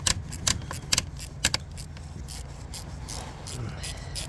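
Ratchet wrench on a long extension clicking as it backs off the 10 mm nut that holds an ignition coil. The clicks are sharp through the first second and a half and softer after.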